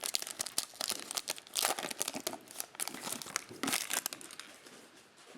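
Foil trading-card pack wrapper crinkling and rustling as it is handled, in quick crisp bursts that thin out about four seconds in.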